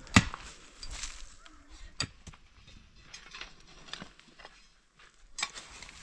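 Irregular sharp knocks and taps: a loud one just at the start, then quieter ones roughly once a second.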